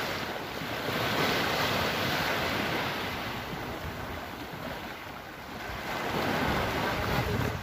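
Small waves washing up the beach and draining back, swelling louder about a second in and again near the end, with wind buffeting the microphone.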